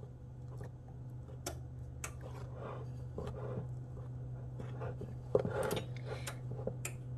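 A fork scraping and clicking against a mixing bowl as solid fat is cut into flour, with soft crumbly rustling of the flour mixture; irregular, with the sharpest clicks about a second and a half and two seconds in and a louder scrape past five seconds.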